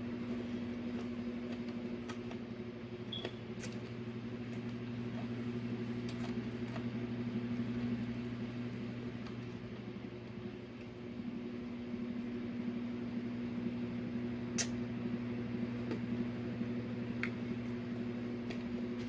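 Steady low mechanical hum, with scattered faint clicks and mouth sounds of someone eating fried fish; one sharper click about two-thirds of the way through.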